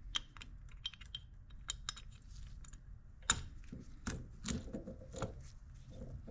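Small metallic clicks and knocks as the aluminium housing of a Bosch VE diesel injection pump is handled and turned over in gloved hands, with one louder clack about three seconds in.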